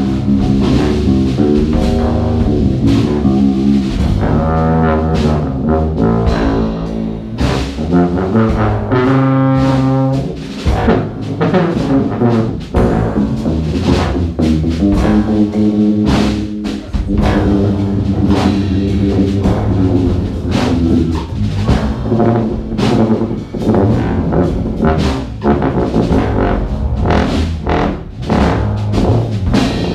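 A large jazz ensemble playing live: brass and saxophones sounding sustained chords over a drum kit beat, with tuba in the bass.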